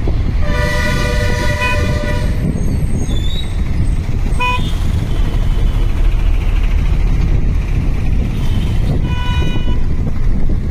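Bus engine and road rumble heard from inside a moving bus, with vehicle horns honking over it: a long blast starting about half a second in, a short toot around four and a half seconds in, and another honk near the end.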